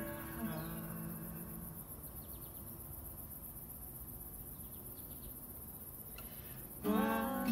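Acoustic guitar chords ringing out and fading, then a quiet pause in which an insect chirps in two short trills of rapid ticks. Near the end the acoustic guitars come back in sharply.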